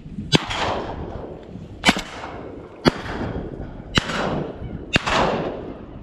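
Five shotgun shots at waterfowl, roughly a second apart, each trailing off in a rolling echo across the open marsh.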